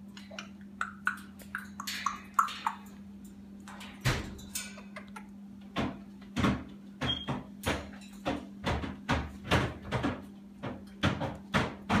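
Congo African grey parrot clambering around its cage: irregular clicks and knocks of its beak and feet on the metal bars, rope ring perch and hanging toys, coming thicker from about four seconds in. A few short soft chirps come near the start.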